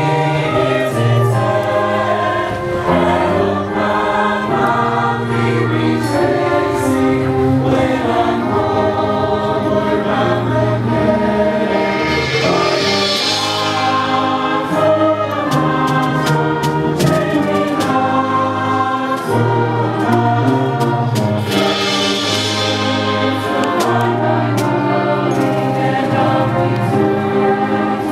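A high school choir singing in several parts, with a concert band accompanying on brass and percussion; sustained chords move along steadily.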